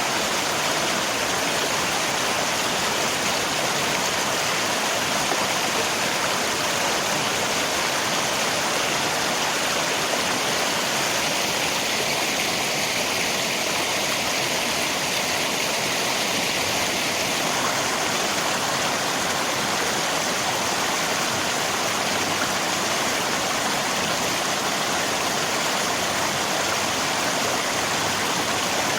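Rain together with flowing river water: a steady, even rush of water with no breaks.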